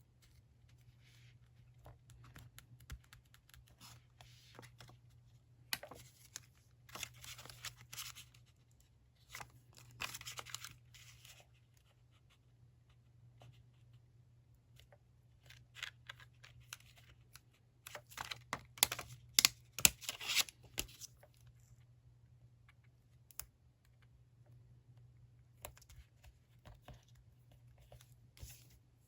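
Paper and stickers being handled while decorating a diary: bursts of rustling, crinkling and tearing with small clicks, the busiest stretch about two-thirds of the way through, over a faint steady low hum.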